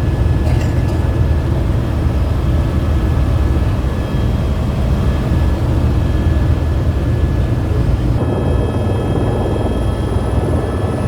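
Helicopter rotor and turbine noise in flight: a loud, steady low drone with thin high whines over it. About eight seconds in, the sound shifts and more high whine tones come in.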